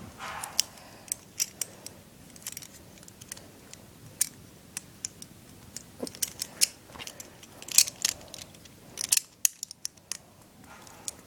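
Plastic and metal parts of a Beyblade spinning top clicking and snapping together as they are fitted and turned into place: a string of sharp, irregular clicks.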